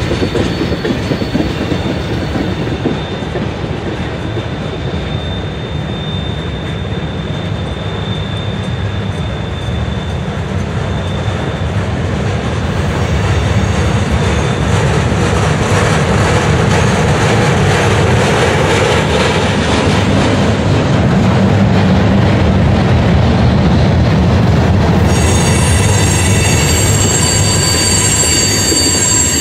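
Freight train cars rolling past in a steady, loud rumble of steel wheels on rail. About 25 seconds in, a high-pitched wheel squeal starts up as the cars grind around the curve.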